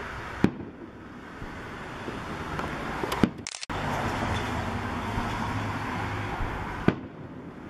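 Aerial fireworks shells bursting: three sharp bangs about three seconds apart, over a steady low background rumble. The sound cuts out briefly just after the second bang.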